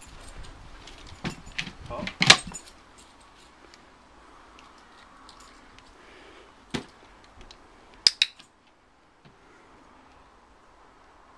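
Scattered sharp clicks and clatters from a border collie moving about on its lead: the metal clip of the lead jangling and its paws and claws tapping an upturned plastic bowl and paving stones. A cluster of knocks comes in the first two and a half seconds, the loudest about two seconds in, with a few single clicks later.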